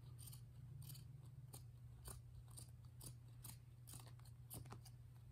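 Pinking shears snipping through a scrap of coarse drop-cloth canvas: a faint run of short, crisp cuts, about two a second.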